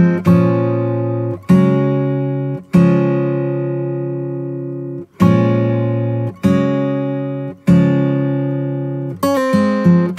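Background music: an acoustic guitar strumming single chords, each left to ring and fade before the next.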